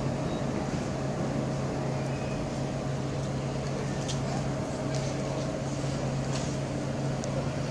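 Steady electrical hum of SBB electric multiple units standing at a station platform, with a few faint ticks.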